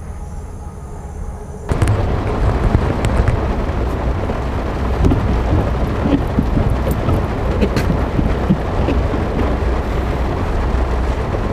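Heavy rain hitting a car's roof and windshield, heard from inside the car, with many small patters over a loud steady wash. It starts abruptly about two seconds in; before that there is only a low, quiet outdoor hum.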